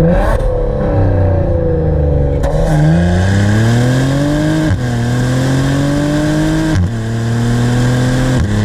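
Exhaust note of a 2019 Maserati Levante GranSport's twin-turbo V6, heard at the tailpipe: the revs ease off, then about two and a half seconds in the engine pulls hard, rising in pitch, with a sharp drop at each of two upshifts near the middle and about three-quarters through.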